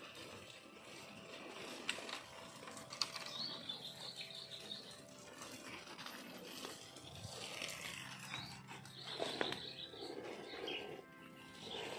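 Faint bird chirping outdoors, with a few sharp clicks.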